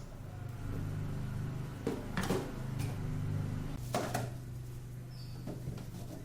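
A few knocks and clatters of containers or shelves being handled during fridge cleaning, the clearest about two and four seconds in, over a low steady hum.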